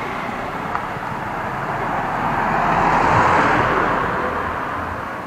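A car and a motor scooter driving past close by: the road noise swells to a peak about three seconds in, then fades as they go by.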